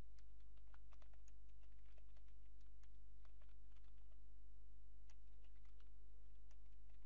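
Computer keyboard being typed on: a run of irregular key clicks, over a steady low electrical hum.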